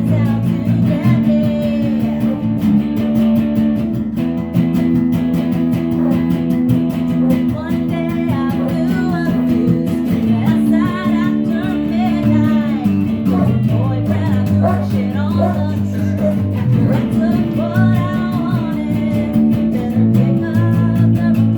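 A song played in rehearsal: guitar accompaniment with a singing voice.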